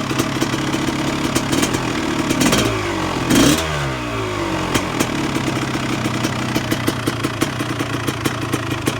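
Freshly rebuilt 1999 Honda CR250R single-cylinder two-stroke engine idling with an uneven, crackling beat. The engine speed rises briefly about three seconds in, then drops back to idle.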